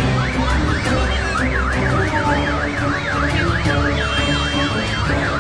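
A siren wailing quickly up and down, about three sweeps a second, starting just after the beginning, over background music with a regular beat.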